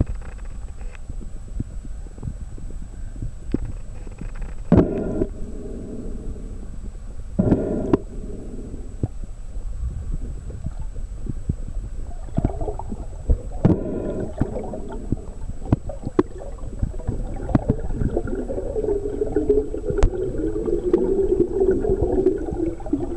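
Underwater sound of a swimmer moving through a lake: a low steady rumble with scattered clicks, and several bursts of bubbling gurgle, the longest near the end.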